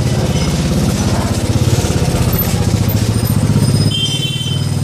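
Motorbike engine running at low speed in a slow crawl, its firing pulses steady and close to the microphone. A brief high-pitched tone sounds about four seconds in.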